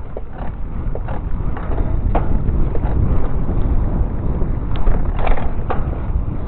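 Wind buffeting the microphone of a camera riding on a moving bicycle: a low rumble that grows louder over the first few seconds as the bike gathers speed. Scattered clicks and rattles from the bike come through it.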